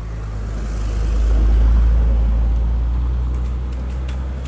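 Car engine running close by, then pulling away: a low rumble that swells to its loudest about two seconds in and then eases off. A few light clicks near the end.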